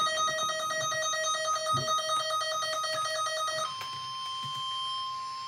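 An electronic alert signal from an emergency weather alert broadcast. For the first three and a half seconds or so it is a fast, evenly pulsing beep. It then switches to one long, steady attention tone that announces the warning.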